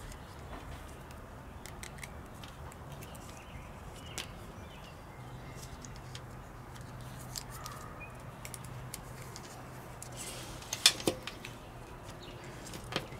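Faint handling noises from working with electrical tape and small parts, scattered light clicks over a low steady hum. About eleven seconds in there is a short cluster of sharper, louder clicks, and another click comes just before the end.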